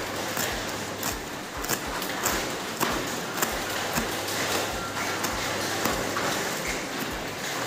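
Kitchen knife chopping spring onions and celery on a plastic cutting board, sharp knocks about twice a second, over the steady hiss of heavy rain.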